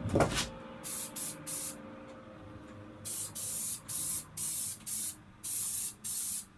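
Aerosol can of Rust-Oleum matte black spray paint hissing in about ten short bursts as a bike frame is touched up. A single knock comes right at the start.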